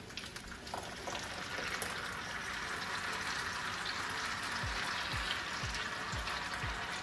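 Beef and potatoes sizzling in a hot clay cazuela, the sizzle growing louder about a second and a half in as tomato sauce is poured over them. A low beat of about two thumps a second joins past halfway.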